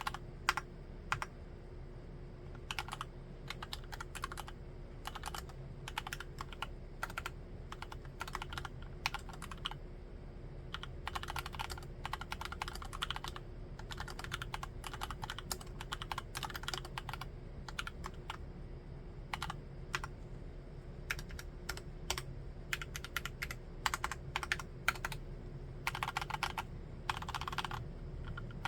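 Typing on a Cox CA106 mechanical keyboard, a full-aluminium-case, full-size Alice layout with Gateron Brown tactile switches. Keystrokes come in quick runs and in slower single presses over a faint steady hum.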